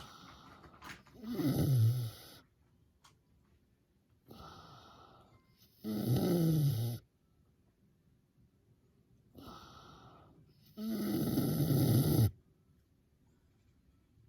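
Miniature pig snoring like an old man: three loud snores about four and a half seconds apart. Each is a rough sound falling in pitch, led in by a softer breath.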